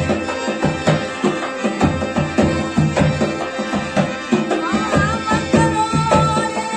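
Rajasthani folk devotional music: a steady, driving hand-drum rhythm with accompaniment, and a wavering melodic line coming in about two-thirds of the way through.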